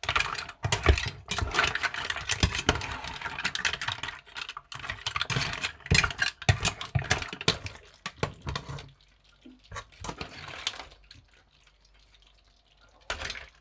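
Mussel shells clicking and clattering against each other and against a wooden spatula and metal spoon as seafood in a wet cream sauce is stirred in a pan. The clatter stops about nine seconds in, leaving only a few soft scrapes and a click near the end.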